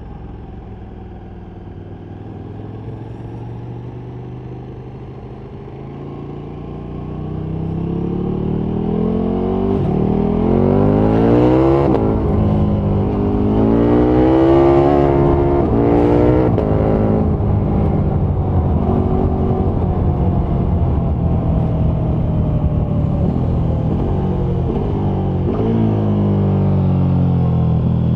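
KTM 1290 Super Duke R's V-twin engine pulling at low revs, then accelerating hard through several gears, the revs climbing and dropping back sharply at each upshift. It then settles to a steady cruise and the revs fall away near the end as the throttle is eased.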